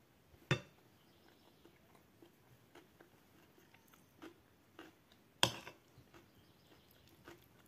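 Metal spoon striking a plate of food twice, sharp clinks about half a second in and again about five seconds in, with soft chewing and small faint clicks of the spoon in between.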